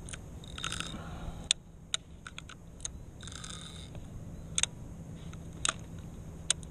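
Scattered sharp clicks and ticks from a spinning reel and rod being handled while line is pulled off the spool by hand, with two short rasps, one about half a second in and one about three seconds in.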